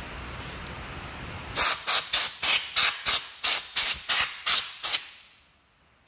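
Compressed-air blow gun fired in about eleven short hissing blasts, about three a second, starting about a second and a half in.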